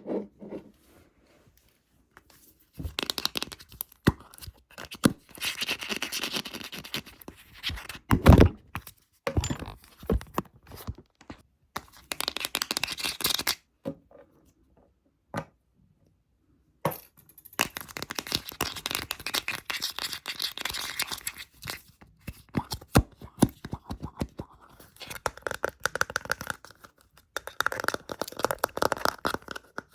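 Close-miked ASMR scratching and rubbing in bursts of one to four seconds, with stretches of dead silence between them. There is one heavy thump about eight seconds in, and from about halfway on, quicker tapping clicks are mixed with the scratching.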